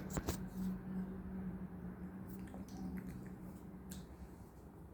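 Soft squishing with small clicks as mayonnaise is worked out of its container onto bread. A low steady hum underneath stops about four seconds in.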